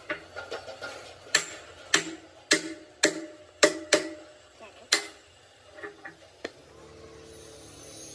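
Hammer blows on metal in a workshop: about eight sharp strikes roughly half a second apart, each ringing briefly. Near the end they stop and a machine motor starts running with a steady hum.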